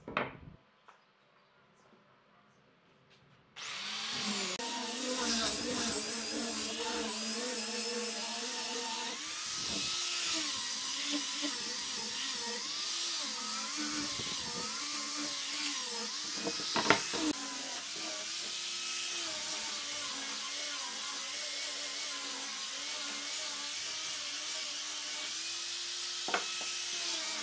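A knock of wood on the bench at the start, then a few seconds of quiet. After that an electric angle grinder with a sanding disc starts up and runs steadily, sanding a curved pine workpiece, its whine wavering and dipping as it bears on the wood. A sharp knock comes about two-thirds of the way through, and a smaller one near the end.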